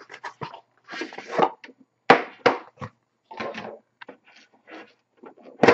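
A sealed hockey-card box being handled and opened by hand: irregular scrapes, rustles and small knocks of cardboard and the black inner box, with a sharp knock near the end.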